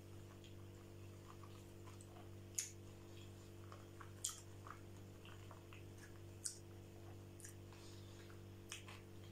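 A person chewing chuka seaweed salad: soft, wet mouth sounds with a few sharp clicks, the three loudest spread through the middle.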